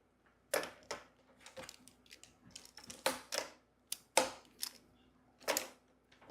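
Plastic magnetic building tiles clicking and clacking together as pieces are handled and snapped into place, about eight irregular sharp clacks.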